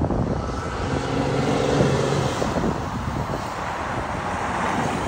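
RAM 2500's 6.7-litre Cummins turbo-diesel running under way as the truck drives toward the listener, its exhaust note coming through a six-inch tip and a plug-and-play diffuser kit. The engine's tone is strongest about one to two and a half seconds in.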